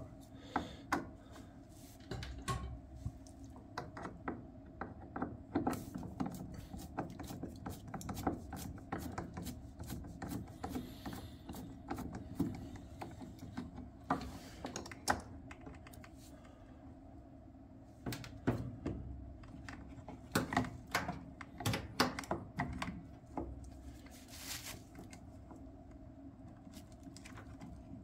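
Hands working the wire connectors and terminals of a furnace air pressure switch: many small irregular clicks, taps and rustles over a steady low hum.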